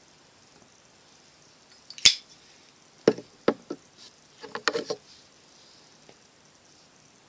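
A sharp click about two seconds in, then a handful of light knocks and taps over the next two seconds, like small objects being handled and set down on a hard surface.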